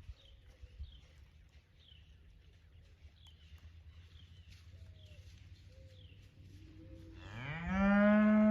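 A cow moos once, a long loud call that rises in pitch as it begins, about seven seconds in. Before it there is only a low steady rumble with faint high chirps.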